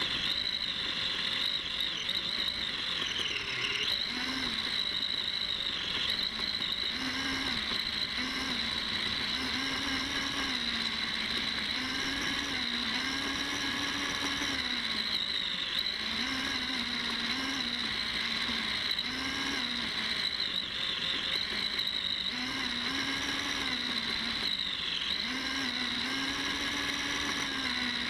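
Electric RC car drive motor whining, heard from on board, over tyre and grass noise. Its pitch rises and falls every second or two as the self-steering car speeds up when pointing at its GPS target and slows down while turning.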